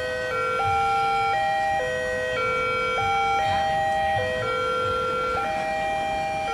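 Electronic alarm sounding a repeating sequence of steady tones, stepping between a few pitches every half second to a second.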